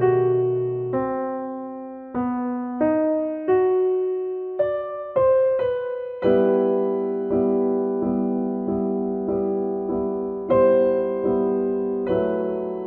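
Slow, gentle background piano music: single notes and chords struck one after another, each left to ring and fade.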